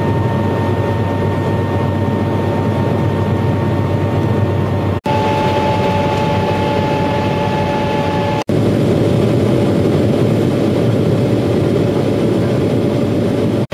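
Airliner cabin noise on the approach: a steady rush of jet engines and airflow with a faint steady whine in it. The sound drops out briefly twice, about five and about eight and a half seconds in, where the recording cuts.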